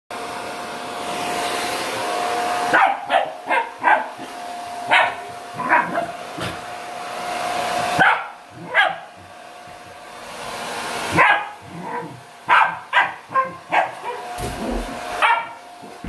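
Hand-held hair dryer blowing in spells of a few seconds, each cut off sharply, and a fluffy white spitz-type dog barking at it in short, sharp barks in the gaps, about a dozen in all. A single low thump comes near the end.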